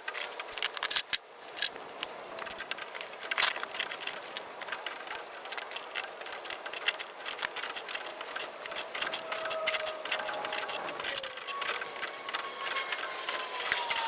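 Socket ratchet clicking rapidly and unevenly as the nuts of an exhaust repair clamp are tightened down on the exhaust pipe.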